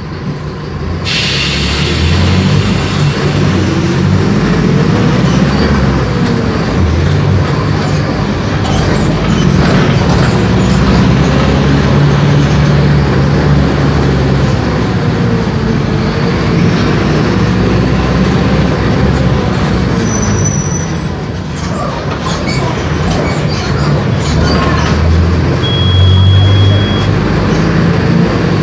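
Mercedes-Benz OF-1418 bus's front-mounted six-cylinder turbodiesel running under way, its engine note rising and falling repeatedly along with body rattle and road noise. A brief high tone sounds near the end.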